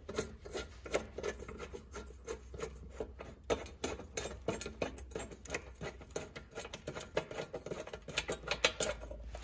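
Black plastic thumb-screw knob being turned off its threaded stud to free the side cover of a Voskhod-3M motorcycle: a quick, irregular run of small clicks and rasping scrapes.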